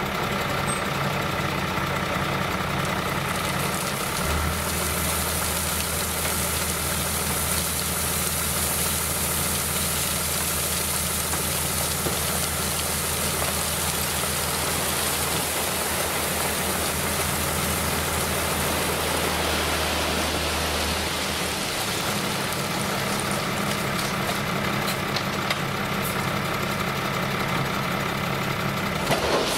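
Tractor engine running while a hydraulic tipping trailer raises its bed and gravel slides off the bed in a long rushing pour. A deeper steady engine note sets in about four seconds in and drops away about twenty seconds later.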